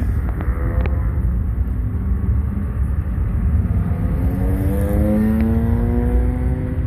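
A car engine running and slowly rising in pitch as a car drives past, over a steady low rumble.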